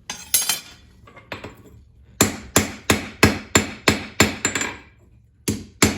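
Hand hammer striking hot coil-spring steel (taken for 5160) on an anvil, forging down the tip of a slot punch: a few single blows, then a steady run of about eight strikes at roughly three a second, a short pause, and more strikes near the end.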